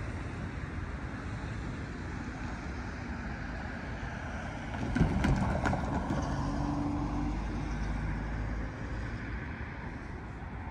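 A car driving over the railroad grade crossing, its tyres knocking over the rails about five seconds in, then its engine running as it pulls away and fades, over a steady background rumble of road traffic.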